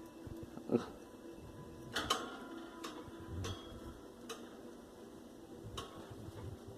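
Pet birds pecking and cracking food out of a hand: scattered sharp clicks of their beaks, irregularly spaced, with a close pair about two seconds in.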